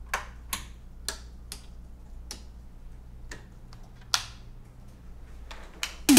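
Scattered sharp clicks of hands working the buttons, switches and pads of studio gear on a desk, about nine clicks at uneven gaps over a faint steady low hum. Loud electronic music starts at the very end.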